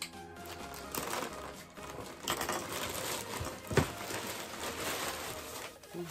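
Plastic poly mailer being torn open and rustled, crinkling as a bubble-wrapped pair of shoes is pulled out of it, with a few sharp knocks, the loudest a little past the middle.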